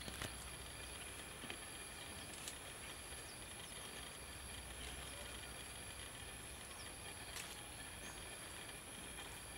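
Faint, steady high-pitched insect drone, with a few light clicks of thin sticks being set in place.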